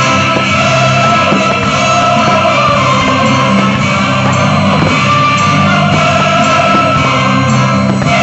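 Loud, continuous music from the soundtrack of a pyro-musical fireworks display. No firework bangs stand out above it.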